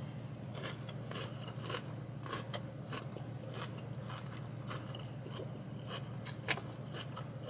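Close-up chewing of a chicken salad with crunchy lettuce and raw vegetables: soft crunches and wet mouth clicks, a few a second, over a steady low hum.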